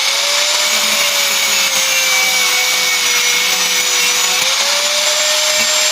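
A small electric power tool running steadily at high speed, its motor whine dipping slightly and rising again about four and a half seconds in.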